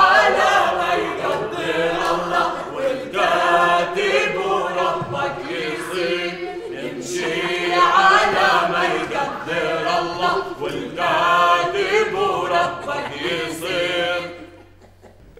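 A group of voices singing together without instruments, stopping about a second before the end.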